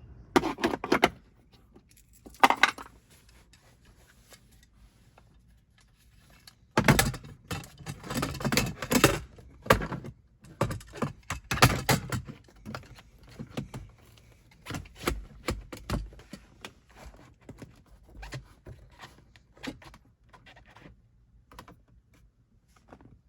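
Metal parts and hand tools clinking, rattling and knocking in irregular clusters, busiest from about seven to twelve seconds in, as parts are handled and fitted.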